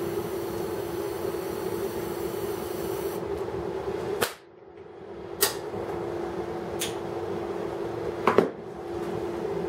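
Oxyhydrogen (HHO) welding station running with a steady hiss and hum. About four seconds in it cuts out abruptly, then builds back up over a second or two, with a few sharp clicks or pops and a double pop near the end.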